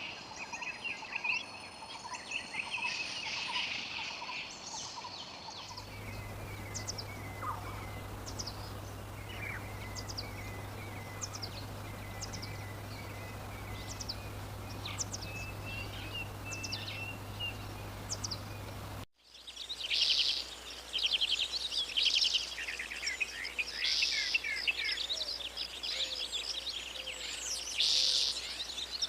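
Wild birds singing and calling: first a chorus of overlapping songs, then a quieter stretch of scattered short chirps over a low steady hum, then loud, fast trilling songs repeated every few seconds after a sudden cut about nineteen seconds in.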